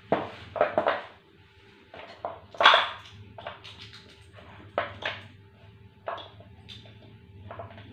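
Irregular knocks and clicks of plastic switch plates, a fan regulator and wires being handled and set down on a wooden tabletop, the loudest a little under three seconds in.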